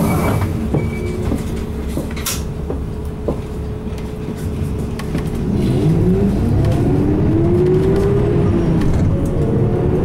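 Isuzu Erga Hybrid city bus heard from inside the cabin: its 6HK1 diesel and hybrid electric motor hum steadily at a standstill, then about five seconds in the bus pulls away. The drive becomes louder, with a whine that climbs in pitch several times as the bus gathers speed through its gears.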